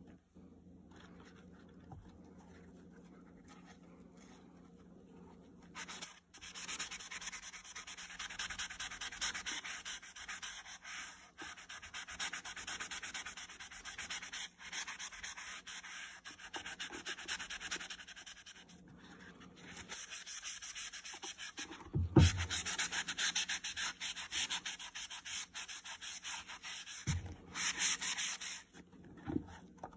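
A towel rubbing briskly back and forth over the white rubber wedge sole of a leather boot, wiping off suds and water. The rubbing starts a few seconds in and runs on with short breaks, with a single sharp thump about two-thirds of the way through.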